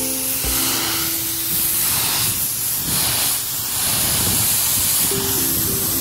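Pressure washer's high-pressure jet spraying wet concrete, a steady hiss. Background music plays over it, dropping out in the middle and returning near the end.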